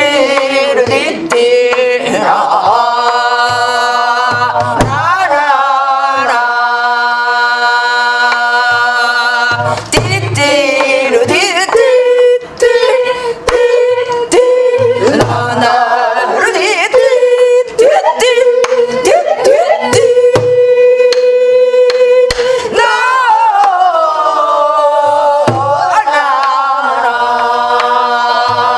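A woman singing Korean gueum, wordless vocal syllables imitating instrumental melody, in long held notes that bend and slide in pitch. She accompanies herself on a buk barrel drum: deep thuds on the drumhead every few seconds and sharper clicks of the stick.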